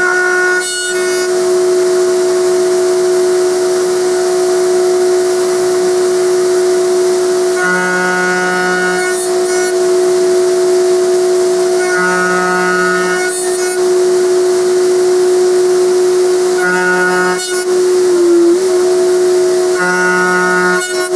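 Router in a router table running at full speed with a steady high whine, a dust-extraction vacuum hissing along with it. Four times, for about a second each, the tone thickens as the 12 mm bit cuts a slot through the wood; right at the end the router is switched off and starts to wind down in pitch.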